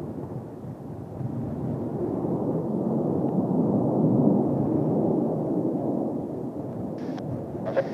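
Kawasaki T-4 jet trainers' twin turbofan engines rumbling past overhead. The deep roar swells to a peak about halfway through, then fades.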